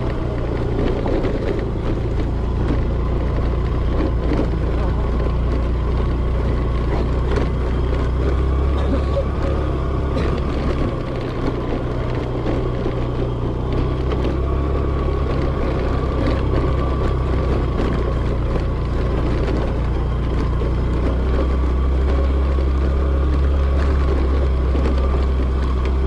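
Motor scooter engine running as it is ridden over a rough, rocky dirt track: a steady drone whose note shifts a couple of times as the throttle changes.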